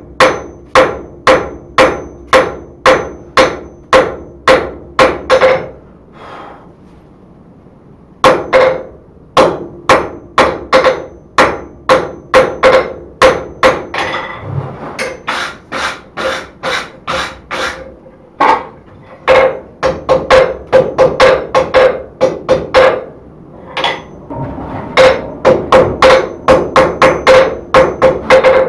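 Hand hammer blows on a red-hot steel bar on an anvil, about two to three a second, each with a clear ring from the anvil. The hammering stops for about two seconds early on, then starts again.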